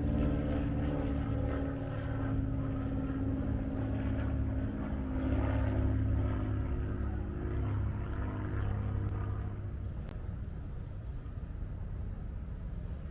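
An engine droning at a fairly steady pitch, loudest in the first few seconds, fading away about nine or ten seconds in and leaving a low background hum.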